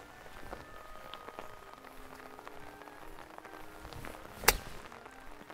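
A 56° wedge striking a golf ball on a short pitch shot from the fairway: one sharp, clean strike a little over four seconds in.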